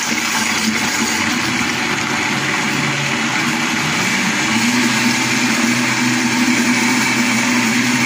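Countertop blender motor running at high speed, blending a tahini and yogurt dressing in its jar. A steady, loud whirring whose pitch rises and strengthens about halfway through.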